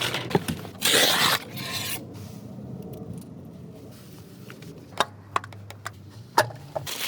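Hand work on a TSI engine's valve train while new rocker arms are fitted: a brief scrape about a second in, then a few light clicks of parts being handled and set in place.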